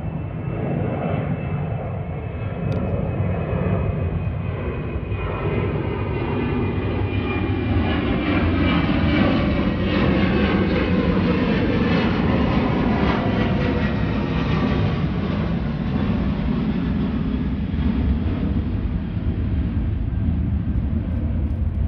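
Aircraft engine drone from a plane flying over, growing louder through the first half and easing slightly near the end.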